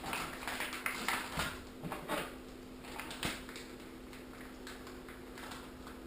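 Plastic bacon packaging being pulled open and handled: scattered crinkles and clicks, busiest in the first three seconds and quieter after, over a faint steady hum.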